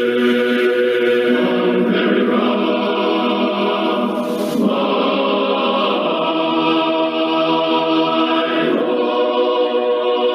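A choir singing a national anthem in held chords that change every couple of seconds; this is the closing anthem played as the broadcast signs off.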